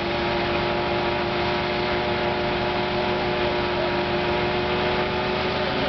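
GAZ-66 truck engine held at a steady pitch under load as the truck strains, stuck in deep snow and not moving.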